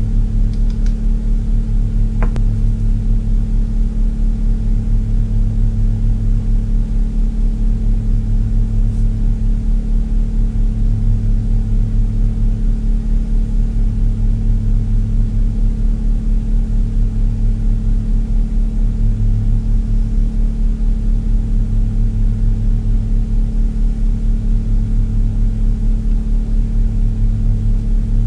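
A loud, steady low electrical or mechanical hum with a slow, regular swell in its lower part every couple of seconds; nothing else stands out.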